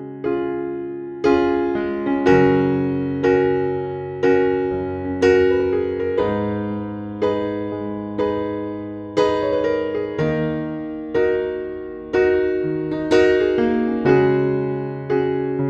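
Gentle background music played on electric piano: slow chords and notes, each struck and left to fade, about one a second.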